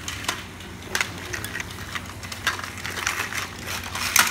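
Hard plastic clicking and knocking as hands handle a toy Mack car-hauler trailer, its hinged side panel open and its small plastic parts moved about. There are several separate clicks, the loudest near the end.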